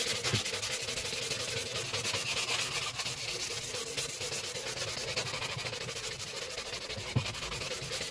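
Sanding block with sandpaper rubbed rapidly back and forth over cured Bondo body filler on a car body panel: a steady, scratchy rasp made of quick strokes.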